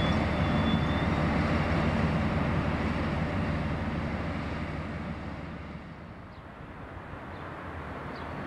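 Diesel engine of an InterCity HST Class 43 power car running, a deep rumble with a thin high whine that stops about a second in; the rumble then gradually fades.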